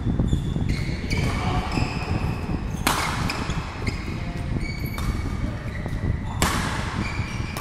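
Badminton rally: rackets hitting the shuttlecock four times, a sharp crack every second or two, with short squeaks of shoes on the court floor between the hits and a constant low rumble underneath.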